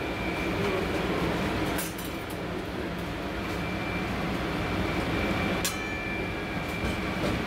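Steady low rumble of a stove burner under a pot of fish simmering in broth, with a faint steady high whine. Two light clinks come about two seconds in and again near six seconds.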